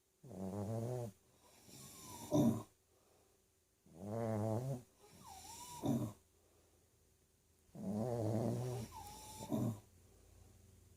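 Snoring: three breaths about four seconds apart, each a rattling, pitched snore followed by a quieter whistling breath that ends in a short, sharp snort.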